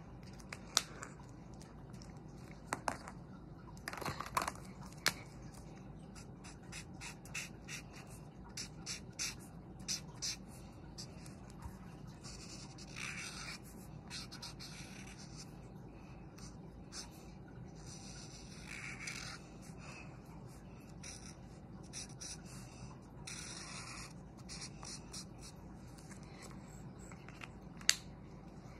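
Felt-tip marker rubbing on paper while colouring in a drawing: many short scratchy strokes, with a few longer back-and-forth passes midway. A couple of sharp clicks sound, one near the start and one near the end.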